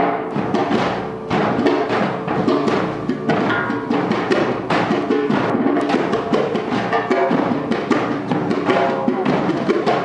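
Live band playing an instrumental passage of a folk song, driven by busy hand-drum and percussion strokes over the ensemble.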